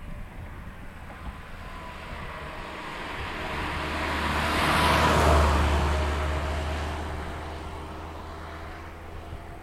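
A vehicle passing close by, its noise rising to a peak about five seconds in and then fading, with a low rumble and a whine that drops in pitch as it goes past.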